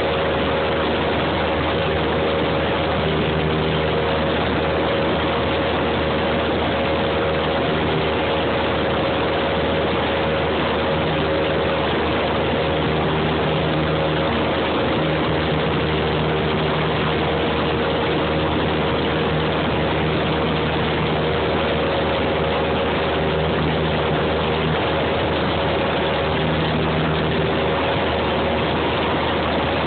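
Light aircraft's engine and propeller running steadily in cruise, heard from inside the cabin as a constant loud drone with a few steady hums that swell and fade slightly.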